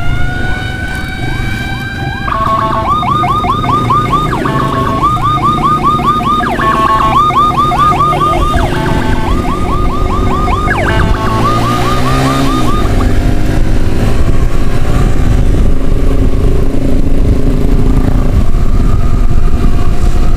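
Electronic emergency siren: a steady tone, then a rapid yelp of fast repeated sweeps broken by short steady notes, cutting off about 13 seconds in. Vehicle engine and road noise run underneath and carry on after it stops.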